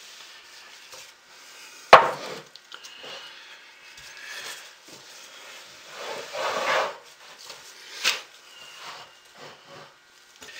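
A crock pot and a wooden soap mold being moved about on a countertop: a sharp knock about two seconds in, a scraping shuffle around six to seven seconds, and a click near eight seconds.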